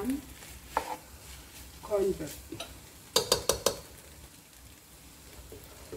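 A plastic cooking spoon stirring noodles in a stone-coated nonstick pot. The spoon knocks against the pot once about a second in, then four times in quick succession about three seconds in.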